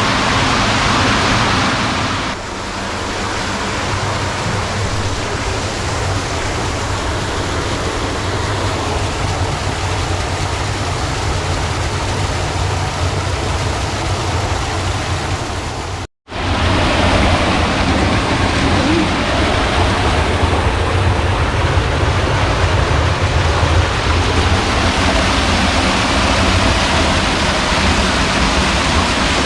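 Rushing water of a small stream, a steady loud noise, cutting out for an instant about halfway through.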